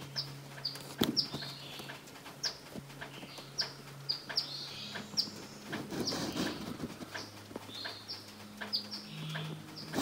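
Short, sharp, high bird chirps, each a quick falling note, repeated about once or twice a second over a low steady hum. A soft rustle comes about six seconds in.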